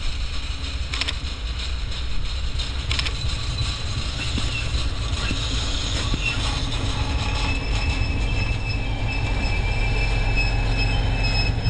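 MAN VT627 diesel railbus running in along the rails and braking to a stop: a steady low rumble that grows slowly louder as it nears, with a thin high squeal from about halfway through as it slows, and a couple of short clicks early in the run.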